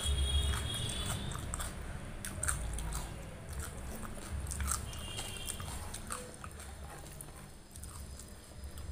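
Close-miked chewing of rice and prawn curry, with irregular small wet clicks. Fingers squish and mix food on a steel plate, with a couple of brief high squeaks, once near the start and again about five seconds in.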